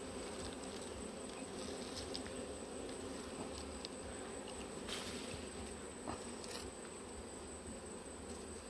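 Wild honeybees buzzing steadily around their open comb, disturbed as the comb is cut away from its branch, with a few faint clicks.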